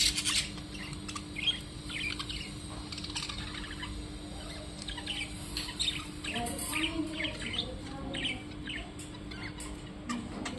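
Small birds chirping in quick, short, high notes, over and over, with a steady low hum underneath.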